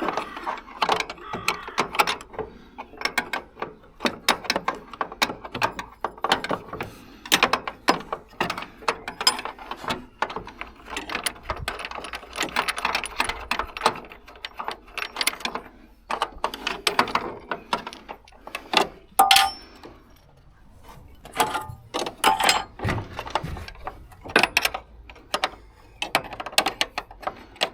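Metal tools and parts clicking and clinking in irregular, rapid knocks and rattles as parts are worked on and removed, with a brief metallic ring about two thirds of the way through.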